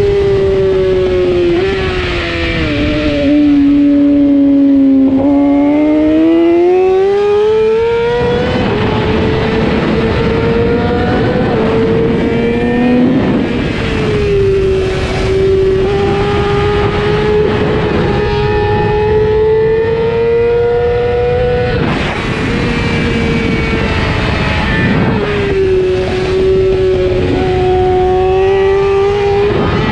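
600cc race motorcycle engine at racing speed, its note falling as the bike slows for a corner, then climbing hard under full throttle, with sudden dips in pitch at each gear change. Heavy wind rush on the on-board camera runs underneath.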